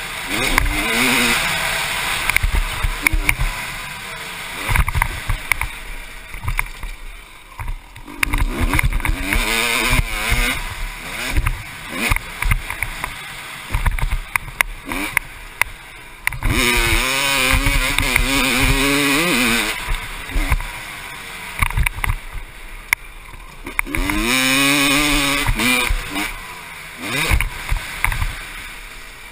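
1996 Honda CR250's two-stroke single-cylinder engine revving up and falling back again and again as the bike is ridden hard around a motocross track, with wind rushing over the microphone and scattered knocks from the rough ground.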